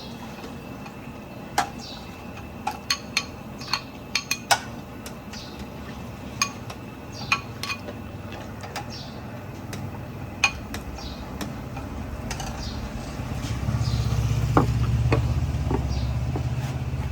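Metal dishes and serving utensils clinking and knocking in sharp, irregular strikes with a short ring, as food is dished out. Near the end, the low rumble of a passing vehicle's engine builds up.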